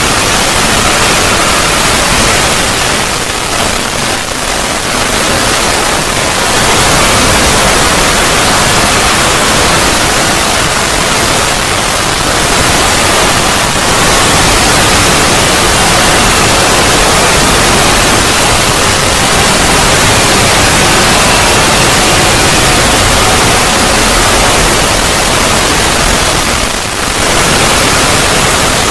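Loud, harsh, continuous static-like noise covering the whole range from deep to high, with faint steady tones buried in it; the level dips briefly about four seconds in and again near the end.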